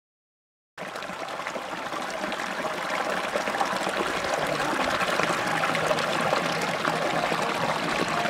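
Dark, sludgy wastewater pouring steadily from a pipe into a shallow pool. It fades in about a second in and grows slightly louder.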